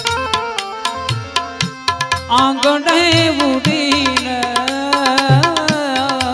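Bhajan music: tabla and bright percussion keeping a steady rhythm under sustained harmonium-like tones, with a wavering, gliding melodic line coming in about two seconds in.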